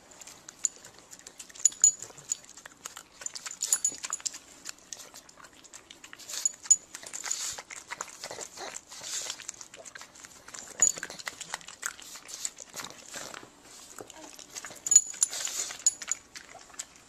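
A dog making a long run of irregular short, noisy sounds broken by sharp clicks.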